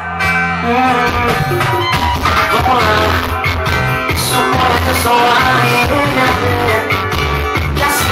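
Music with a heavy bass line and some singing, played loud through a car sound system.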